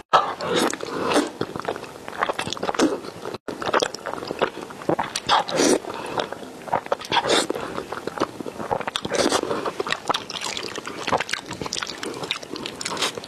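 Close-up slurping and chewing of wide glass noodles in a thick sauce: repeated wet sucking as noodle strands are drawn in, with mouth smacks and chewing between.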